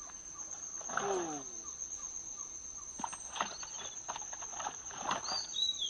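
A hooked fish thrashing at the surface of the pond, with irregular splashes from about three seconds in. A steady high insect whine runs underneath, and a short falling call sounds about a second in.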